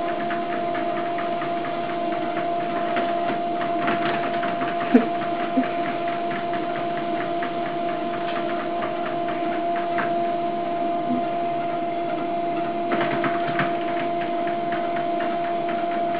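Electric treadmill running steadily: an even motor hum with the belt's whirr, and scattered light taps on the moving belt, two sharper ones about five seconds in.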